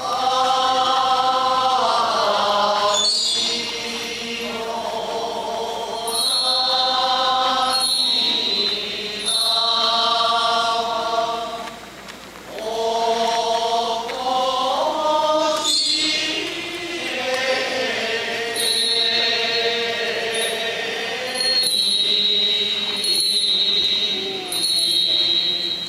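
Goeika, Shingon Buddhist pilgrim hymn, chanted by a group of voices in long, slowly gliding held notes and phrases of a few seconds each. A small hand bell rings repeatedly over the singing in several stretches.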